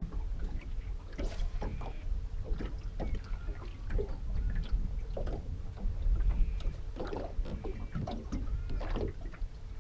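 Wind buffeting the microphone as a steady low rumble, with irregular small knocks and slaps of water against a small boat's hull, and a faint steady hum underneath.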